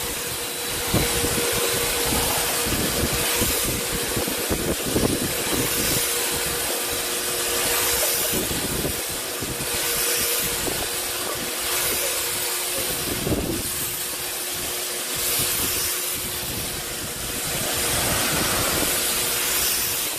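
RunInMist 1800 PSI electric pressure washer running, its motor humming steadily under a continuous hiss of water spray, with wind gusting on the microphone.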